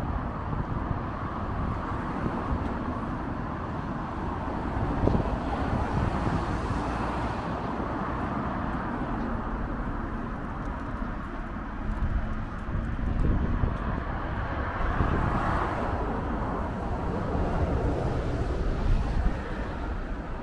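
Steady rumble of road traffic on a city street, swelling now and then as vehicles pass.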